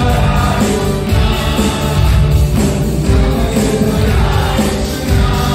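A live worship band playing a Hindi Christian song: electronic keyboards and electric guitar over a steady beat, with a male voice singing into a microphone.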